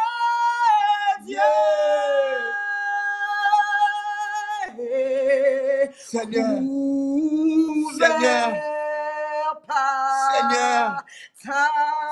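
A man and a woman singing a slow worship song together, holding long notes with vibrato and pausing briefly between phrases.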